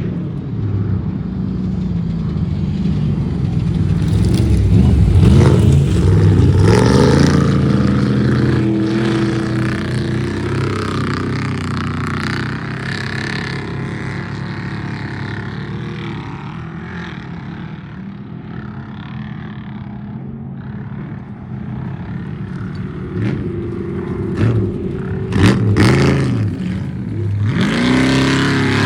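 Off-road race truck engines running hard and revving, the pitch sweeping up and down as trucks accelerate and pass about five seconds in and again near the end, with steadier engine drone in between.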